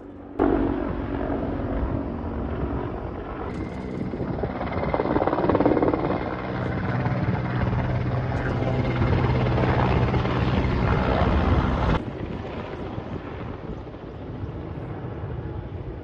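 Firefighting helicopter in flight, its rotor and engines giving a steady hum. About twelve seconds in the sound drops abruptly to a fainter level.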